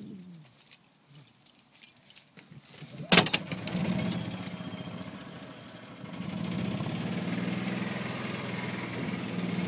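A few small clicks, then a sharp clatter about three seconds in, followed by a golf cart's engine starting up and running steadily, getting louder about six seconds in as the cart gets going.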